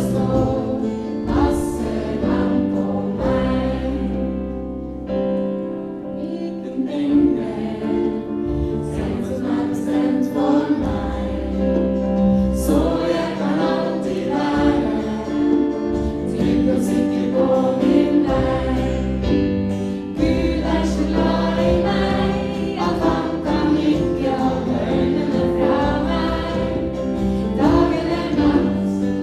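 Congregation singing a worship song together, led by a woman's voice and accompanied by acoustic guitar.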